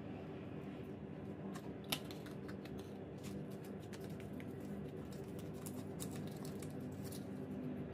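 Clear plastic sticker sleeves and paper stickers being handled: a run of light crinkles and clicks starting about a second and a half in, with one sharper click near two seconds, over a steady low hum.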